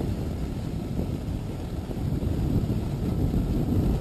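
Wind buffeting the microphone, a steady low rumble.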